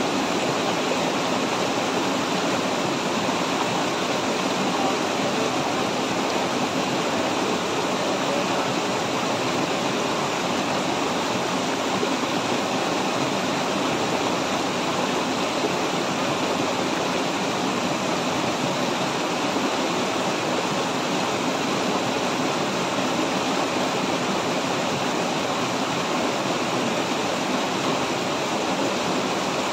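Mountain stream tumbling over a small rocky cascade: a steady, even rush of water.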